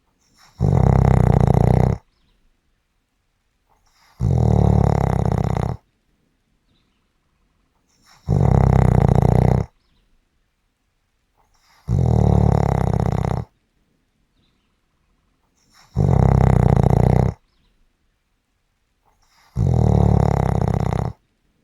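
Snoring in a slow, regular rhythm: six snores, each about a second and a half long, coming about every four seconds with near silence between.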